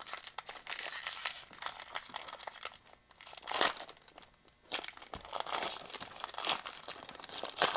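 Foil wrapper of a jumbo pack of trading cards being torn open and crinkled by hand: a dense run of crackling, with a couple of short pauses and a few sharper crackles.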